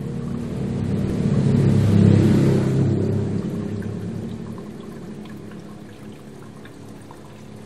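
Aquarium filter running: water pouring and splashing into the tank over a steady motor hum. The water noise swells loudest about two seconds in and then eases off.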